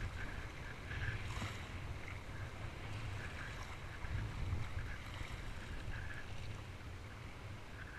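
Wind rumbling on a body-mounted action camera's microphone as a kayak is paddled through surf, with water sloshing and splashing against the hull and paddle.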